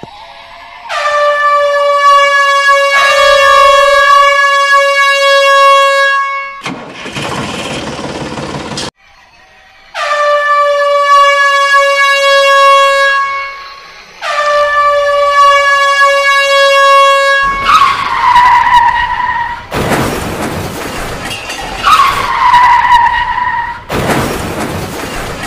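Toy steam locomotive's electronic whistle sounding four times in long steady blasts, each dipping slightly in pitch as it starts, with stretches of hissing steam-effect noise between and after. Near the end two shorter whistles fall in pitch over the hiss.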